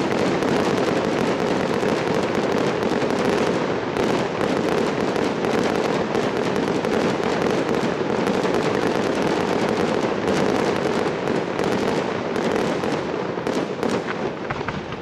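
Ground firework fountain spraying a tall column of sparks: a continuous loud crackling hiss, thick with tiny pops, that eases off near the end.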